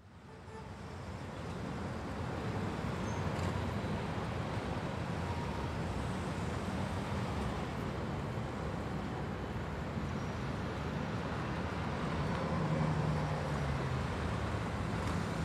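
Steady city traffic noise, a continuous hum of road vehicles, fading in over the first couple of seconds.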